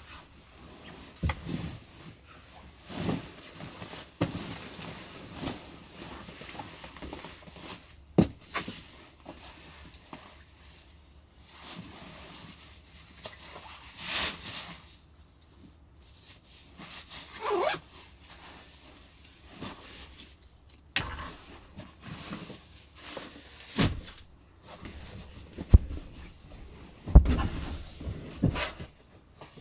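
Sleeping bag rustling as it is gathered up and stuffed into its stuff sack, with irregular handling noises and several sharp knocks, the loudest near the end.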